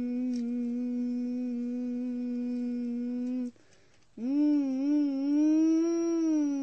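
A person humming two long held notes. The first is steady and stops about three and a half seconds in; the second begins just after four seconds, a little higher, and wavers gently in pitch.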